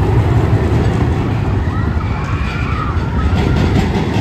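Steady, loud rumble of the Anaconda steel roller coaster's train running along its track.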